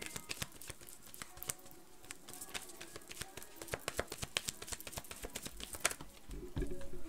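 Irregular light clicks and taps from small objects being handled by hand.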